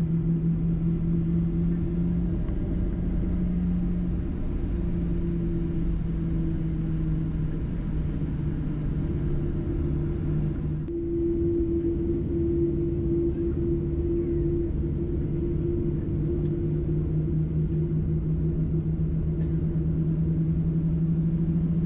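Cabin drone of a Boeing 737-800 taxiing, heard from inside the cabin: its CFM56-7B engines at taxi power and the rumble of the airframe rolling, with a steady low hum in two pitches that shifts slightly about halfway through.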